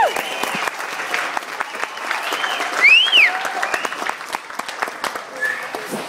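Audience applauding and cheering, with high whoops over the clapping and one loud whoop about three seconds in; the applause thins out toward the end.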